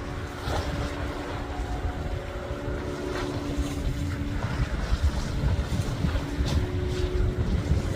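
Wind rumbling on the microphone over the steady drone of a boat engine out on the water.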